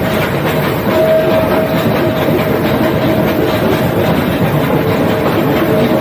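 Nilgiri Mountain Railway toy train running: a steady rumble and rattle of the carriages on the track, with a steady whine over it that is strongest about a second in.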